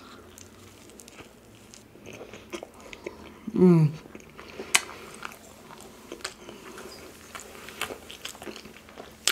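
A person eating close to the microphone: soft mouth clicks and crunches of chewing, with one short falling hum of voice about three and a half seconds in.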